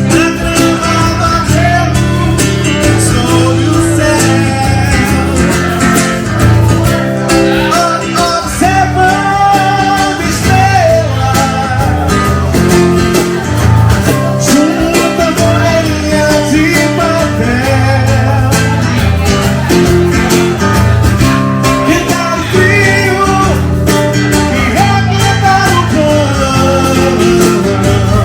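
Music: guitar played with a singing voice over a steady bass line.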